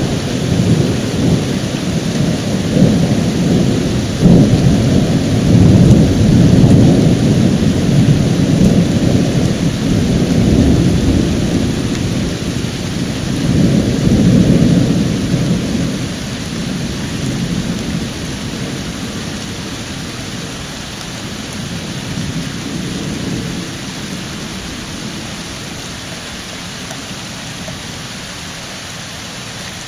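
Long rolling thunder over steady rain. The rumble swells about four to eight seconds in and again around fourteen seconds, then slowly dies away, leaving the rain.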